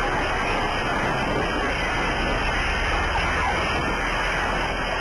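Loud, continuous crash noise inside a tour bus's cabin just after a semi-truck slams into it from behind.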